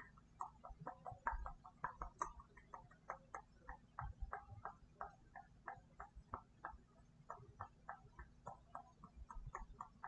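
Rapid mouth clicks and lip pops made close to a microphone, about four or five a second in an uneven run.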